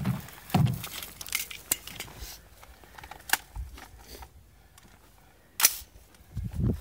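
A few scattered sharp clicks and knocks of equipment being handled, the loudest a single sharp knock about five and a half seconds in.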